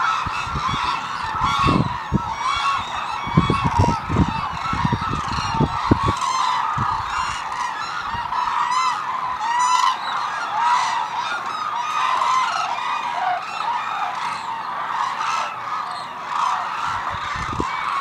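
Flock of hooded cranes calling, a continuous chorus of many overlapping bugling, honking calls.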